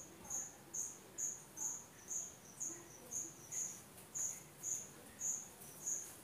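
A cricket chirping steadily: short, high-pitched chirps repeating about twice a second.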